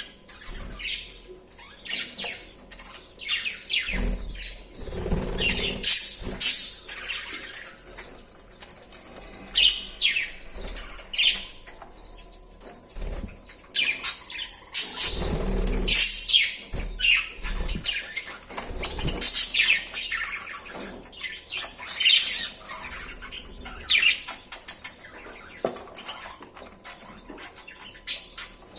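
Budgerigars chirping and chattering in quick, irregular high calls, with a few low thuds and flutters, around 4 to 6 seconds in and again around 15 seconds in.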